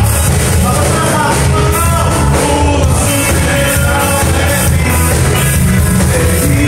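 Live gospel band playing with singing: drum kit, electric guitars and keyboard, loud and steady throughout.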